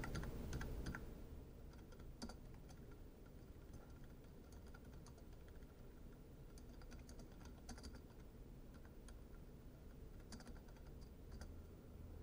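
Faint computer keyboard typing in short bursts of keystrokes, with pauses between the bursts.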